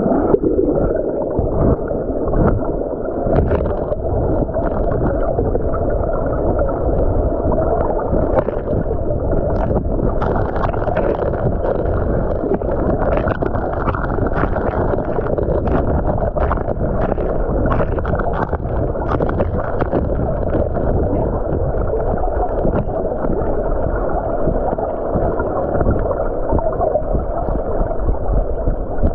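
Water rushing over a gravel bed, heard from underwater as a steady muffled rush, with many sharp clicks and knocks of pebbles striking each other as the gravel is stirred up, thickest in the middle stretch.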